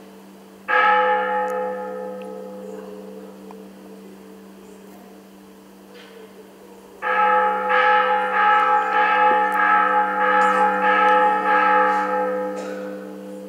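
A bell struck once and left ringing as it dies away, then about six seconds later rung repeatedly, about two strikes a second, for some five seconds before it stops.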